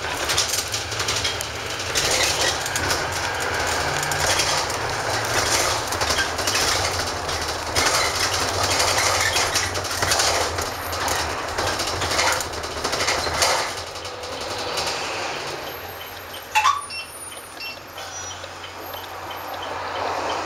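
Inside a 2010 Chevrolet 4500/ARBOC SOM27D cut-away bus under way: the GM Duramax 6.6 L V8 diesel runs under road noise while the body and interior fittings rattle. It grows quieter over the last third, with one sharp click about two-thirds of the way through.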